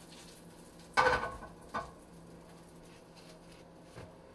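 A sharp clink of kitchen dishes or utensils about a second in, ringing briefly, followed by a smaller knock and a faint tick near the end, over a faint steady hum.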